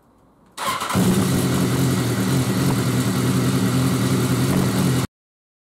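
BMW S1000R's inline-four engine starting about half a second in, then idling steadily and loudly; it is run with its fresh oil just filled in. The sound stops abruptly near the end.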